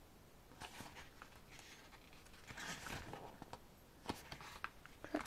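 Pages of a thick photobook being turned by hand: soft paper swishes, then a few light taps near the end.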